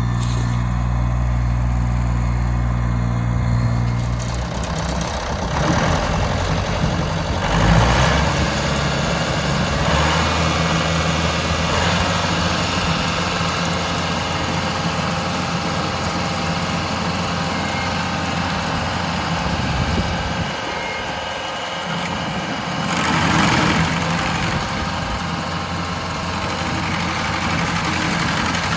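An engine running steadily at idle, with a few short, louder noises over it, about six, eight, ten and twenty-three seconds in.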